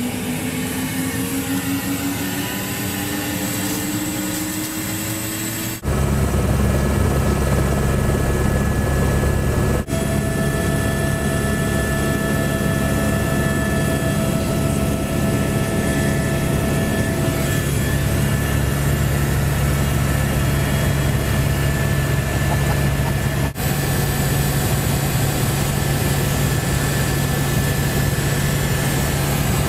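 Helicopter heard from inside the cabin. For the first few seconds a whine rises slowly in pitch as the engine spools up. Then comes the loud, steady drone of rotor and engine in flight, which jumps louder about six seconds in.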